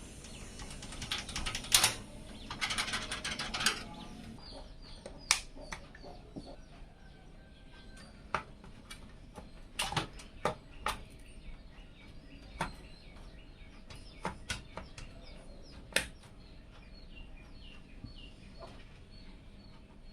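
Sharp, irregular clicks and knocks of hard parts being handled, with a rustling stretch in the first few seconds. Small birds chirp repeatedly in the background, short falling chirps.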